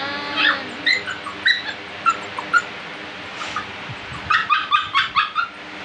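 Puppy whimpering in short, high-pitched yips: a few spaced calls, then a quick run of about seven near the end.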